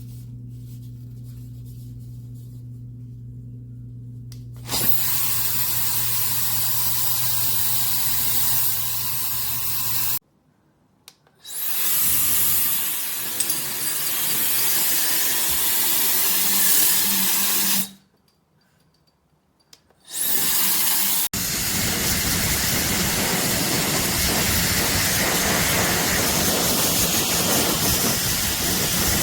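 Hair dryer running, starting with a low steady hum and then a much louder, steady rush of air from about five seconds in. It stops dead twice for a second or two and starts again, as if switched off and on.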